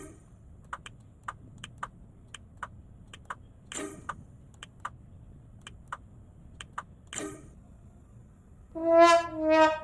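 A string of light, sharp clicks about three a second, broken by three short hissy bursts, followed near the end by a loud brass-like horn tone that steps down in pitch.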